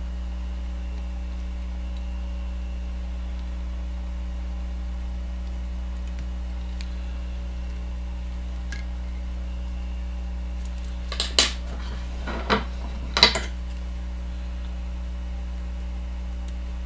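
Steady low hum, with a few sharp metallic clicks and clinks about eleven to thirteen seconds in from small fly-tying tools being handled at the bench.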